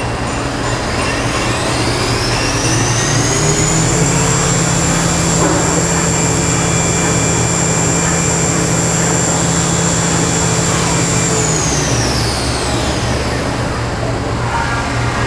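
Haas VF-3 CNC machining center running a program: its 10 HP spindle motor winds up to speed with a rising whine, holds a steady high whine for about seven seconds, then winds down, over a constant low machine hum.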